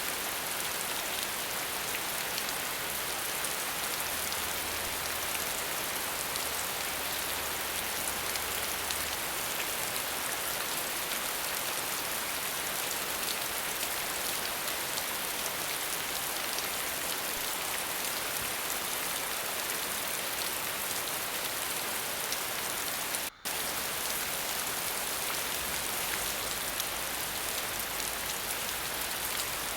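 Falling water: a steady, even hiss with no music, broken by a brief dropout about 23 seconds in.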